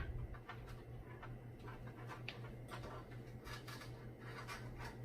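Irregular small clicks and taps of PC parts and power-supply cables being handled, over a steady low hum.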